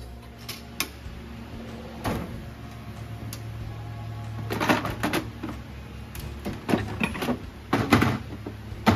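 Drawer of a steel tool chest being handled, the heavy metal tools inside knocking and clanking a handful of times: once about two seconds in, a cluster around the middle, more near the end. A low steady hum runs underneath.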